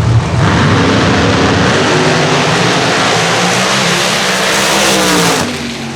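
Two no-prep drag cars launching and making a full-throttle pass side by side, their engines at full power with the pitch sweeping up and then down. The sound drops off sharply about five seconds in.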